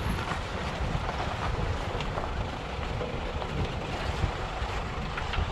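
Steady rumble of a small motorboat under way, with wind buffeting the microphone.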